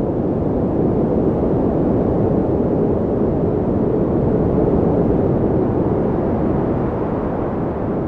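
A steady low rumbling noise with no distinct events, swelling slightly at the start.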